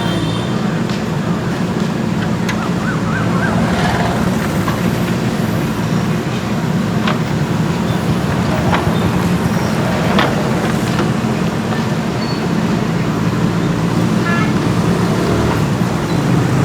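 JCB 3DX backhoe loader's diesel engine running steadily under load, with several short sharp knocks over it.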